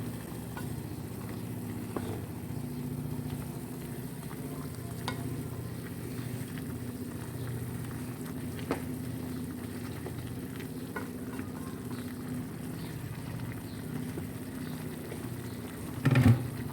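Broccoli and chicken simmering and sizzling in a pot, with a few light clinks of a spoon against the pot as it is stirred, and one louder knock near the end.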